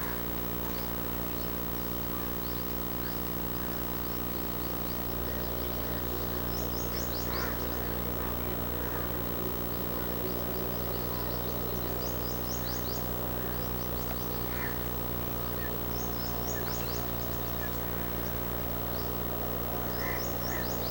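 A bird giving short runs of four or five quick, high notes, repeated every four or five seconds, over a steady low hum.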